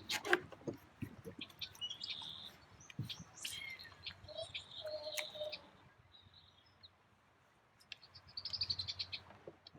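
Songbirds chirping, with a quick trill of evenly spaced notes near the end, and a few sharp clicks.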